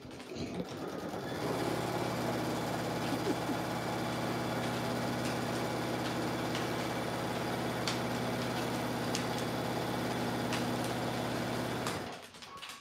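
Sewing machine running at a steady speed, stitching a long top-stitch seam. It starts about a second in, runs evenly, and stops abruptly near the end.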